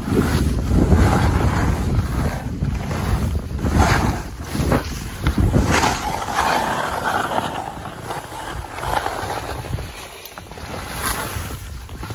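Wind rumbling on the microphone of a moving skier, with skis hissing and scraping over packed snow in repeated surges as the turns come and go.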